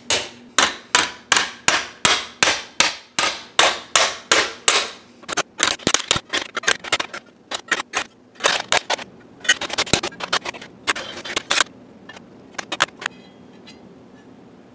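Hammer blows on a bronze disc held over a steel pipe coupling, dishing it into a convex shape. Each sharp strike rings briefly. The blows come about three a second for the first five seconds, then in quicker, irregular runs, and end with a few light taps about thirteen seconds in.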